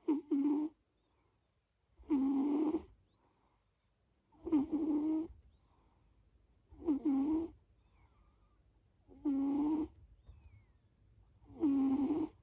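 A sleeping pet snoring in a steady rhythm: six short, pitched snores, one about every two and a half seconds.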